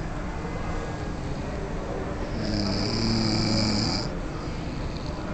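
A man snoring in his sleep: one long snore from about halfway through, lasting over a second, with breathing noise around it.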